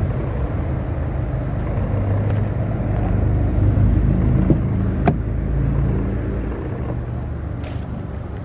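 Pickup truck engine idling, a steady low rumble that grows louder toward the middle and then eases, with a sharp click about five seconds in as the driver's door is opened.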